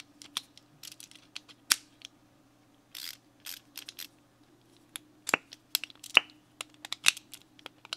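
Irregular sharp clicks and snaps of VESSEL ratcheting screwdriver parts as the detachable ratchet heads and handles are pulled apart and pushed back together. There is a short rustle of handling about three seconds in.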